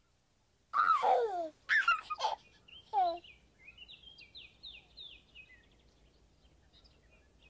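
Birdsong: three loud calls that fall steeply in pitch in the first three seconds, then a quicker run of fainter, high chirps.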